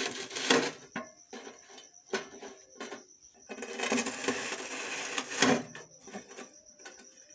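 Knife sawing through crisp toasted bread slices on a metal tray: crunching, scraping strokes in several bursts, the longest and loudest a little past halfway, then only a few light clicks near the end.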